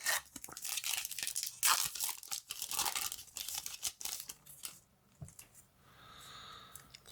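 Foil Yu-Gi-Oh booster pack being torn open and crinkled, a dense crackling rustle for about four and a half seconds, then dying down.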